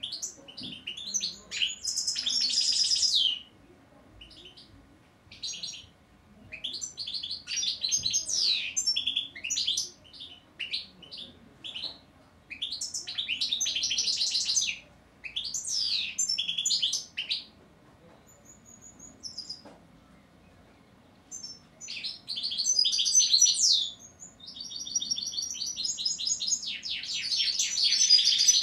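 European goldfinch singing: phrases of fast, high twittering, each one to a few seconds long, repeated with short pauses between them.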